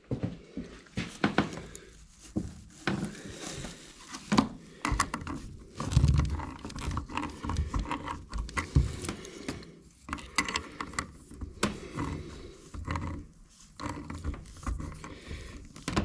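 Irregular clicks, scrapes and knocks of metal parts being handled and worked into place: a lubricated fitting being pushed into a pressure washer part.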